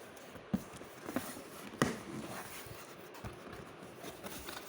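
Handling noises: a few light knocks and taps, the clearest about two seconds in, as fan parts and packaging are moved about by hand.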